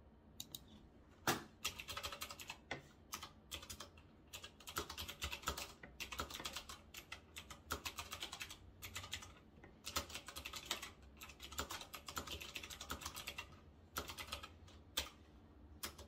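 Typing on an RK Royal Kludge S108 typewriter-style mechanical keyboard with blue switches, very clicky: quick runs of key clicks broken by short pauses, starting in earnest about a second in and stopping shortly before the end.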